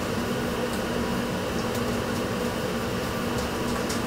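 Steady ventilation hum with a low steady tone, and a few faint soft clicks.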